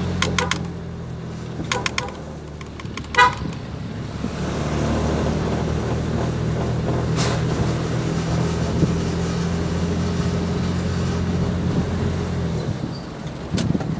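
Mitsubishi L300 van's engine running steadily, heard from inside the cab while driving, with a few short horn beeps in the first few seconds. The engine drone drops away near the end.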